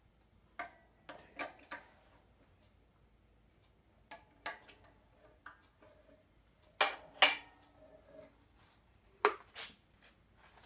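Scattered metallic clinks and knocks of steel parts being handled on a hydraulic shop press while fitting a universal joint into a driveshaft yoke. Two sharp knocks close together about seven seconds in are the loudest, with another clink a couple of seconds later.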